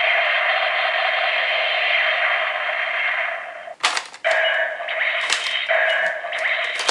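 Electronic sound effects from a Gabu Revolver toy's small speaker. A harsh, hissing effect plays for about three and a half seconds, then sharp plastic clicks from the toy's mechanism, then another hissing effect broken by more clicks.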